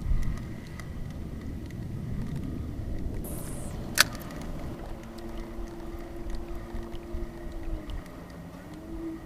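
Casting with a spinning rod from a kayak: a short hiss of line going out about three seconds in, then one sharp click, over a low rumble of wind and handling, with a steady low hum starting about two seconds later.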